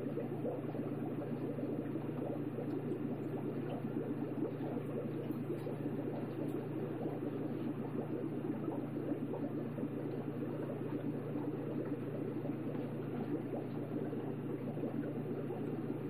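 Steady aquarium water sound: dense, low bubbling and churning water over a constant low hum.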